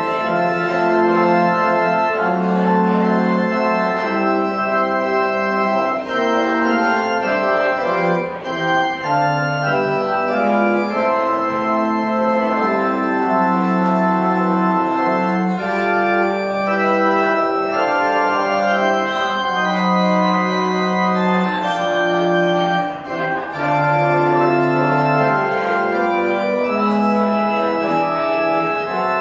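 Organ playing slow, sustained chords.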